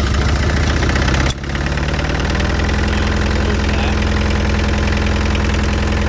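Mini excavator's diesel engine running with one injector line cracked open to bleed air from the fuel lines. It runs with a dense, rapid chatter, dips briefly about a second in, then settles into a steadier, even note.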